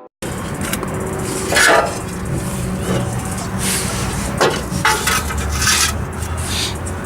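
Brief scraping and rubbing noises of hand work on a car's exhaust parts, three or four short scrapes over a steady low background rumble.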